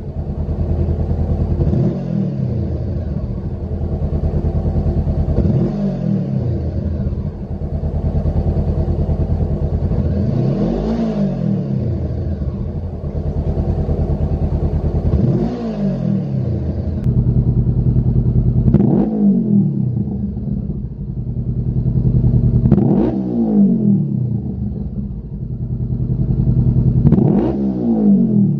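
Honda CBR500R's parallel-twin engine idling and being revved seven times, each rev rising and falling back to idle about every four seconds. It is heard first through the stock silencer, then from about halfway through a Lextek SP1 aftermarket full exhaust system.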